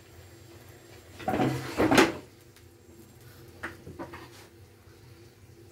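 Metal frying pan dragged and clattered across the gas hob's pan supports, a loud scrape for just under a second, followed by a few light knocks.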